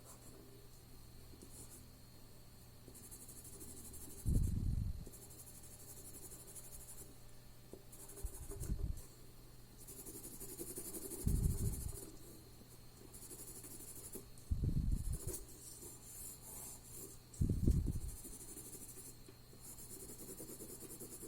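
Drawing strokes scratching and rubbing on paper, coming and going in short runs. About five soft, dull low thumps fall between them and are the loudest sounds.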